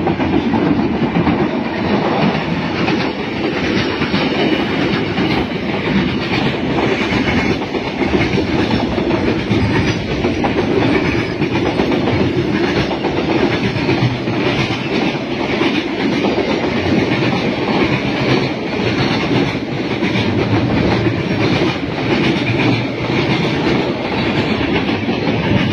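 Freight train passing close by at speed, its wagons' wheels clattering steadily over the rail joints.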